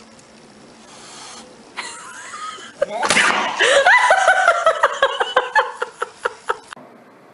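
A person laughing: a sudden outburst about three seconds in, then a run of quick high-pitched ha-ha bursts that fade away.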